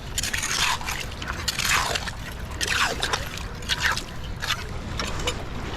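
Clam digging in wet mudflat sand: a hand tool scraping and raking through the wet mud in irregular short strokes, with wet squelching.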